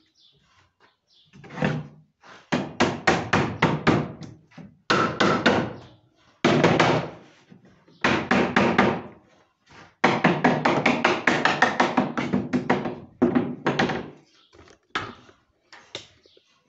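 Pneumatic pin nailer firing in quick runs of sharp knocks, about four or five shots a second, driving pins into cedrinho tongue-and-groove ceiling boards on a wooden frame; the runs come in several bursts with short pauses between them.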